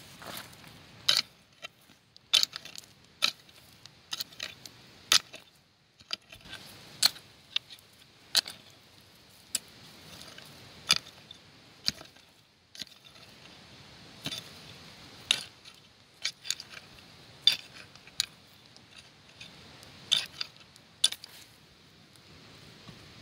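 Metal hand hoe chopping into stony soil, its blade striking and scraping against stones in sharp, irregular clinks, roughly one a second.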